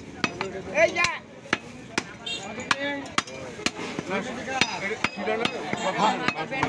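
A heavy cleaver chopping beef on a wooden log chopping block: repeated sharp knocks at an uneven pace, about two a second.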